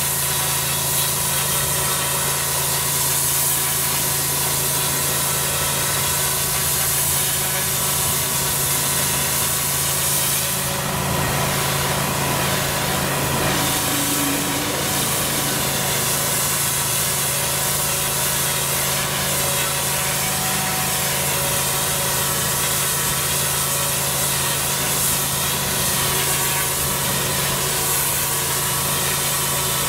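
Pressure washer running steadily: a constant drone from the machine, with the hiss of a twin-headed turbo lance jetting water onto block paving to strip moss and dirt.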